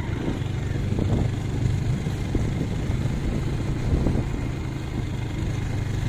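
A vehicle engine running steadily while driving, a low constant hum under road and wind noise.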